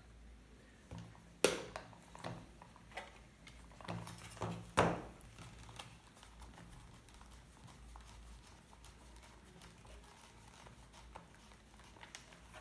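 Leather camera case being unfastened and handled, with a folding camera lifted out of it. There are several sharp clicks and snaps in the first five seconds, the loudest about a second and a half in and just before five seconds, then only faint rustling.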